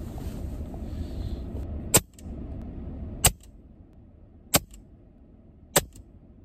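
EDgun Leshiy 2 PCP air rifle fired four times, about one and a quarter seconds apart, each a short sharp crack. A low background rumble drops away after the second shot.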